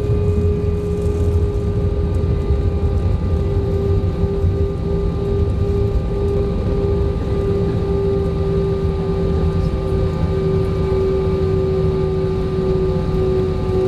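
Airbus A321 engines heard from inside the cabin: a steady low rumble with a steady whining tone over it.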